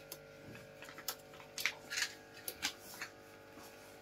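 A few light, irregular clicks and scratches, the loudest just before halfway, over a faint steady hum.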